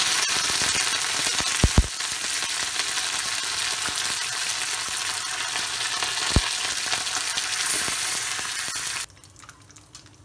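Curry leaves and mustard seeds sizzling loudly in hot coconut oil, a South Indian tempering being stirred in a kadai, with a few sharp clicks. The sizzle cuts off suddenly about nine seconds in.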